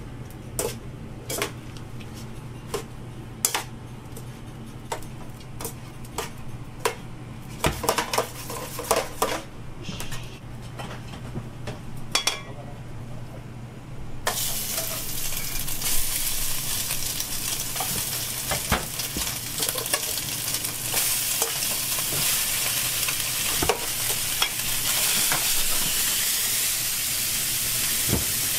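Chopsticks and spatulas clicking and scraping against steel pans and bowls as food is stirred. About halfway through, a loud steady sizzle starts up as vegetables fry in a hot pan, with stirring clatter over it.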